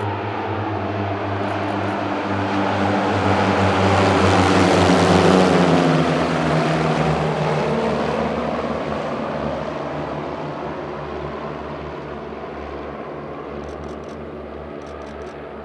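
Saab T17 Safari propeller trainers flying past, the drone of their piston engines and propellers swelling to a peak about five seconds in, then dropping in pitch and fading as they pass.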